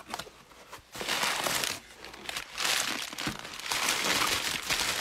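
Crumpled packing paper crinkling as it is pulled out of a cardboard box, in a short burst about a second in and a longer stretch from about two and a half seconds on.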